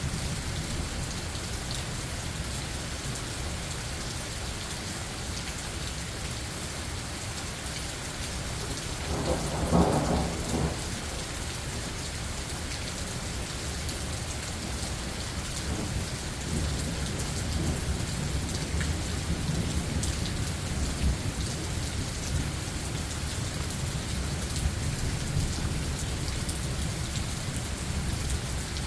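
Steady rain falling in a thunderstorm, with a roll of thunder swelling up about a third of the way through and lower rumbles later on.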